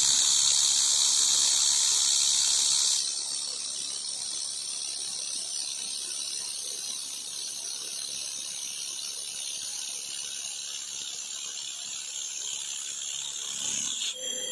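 Hand-held fiber laser welder running a weld bead along a splice joint in 3 mm carbon steel plate, a steady high-pitched hiss. The hiss is louder for about the first three seconds, then drops to a softer, steady level, with a few brief breaks near the end.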